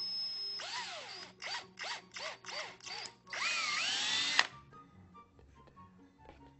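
Cordless drill boring into a hollow plastic toy dinosaur's head. The motor whines steadily at first, then runs in a string of short trigger bursts whose pitch swoops up and down. About three seconds in comes a longer run rising in pitch, which stops suddenly shortly after four seconds. Faint background music follows.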